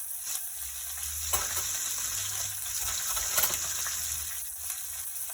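Whole red snapper frying in a pan on the stove top: a steady sizzle, with two brief sharper crackles, one about a second in and one past the middle.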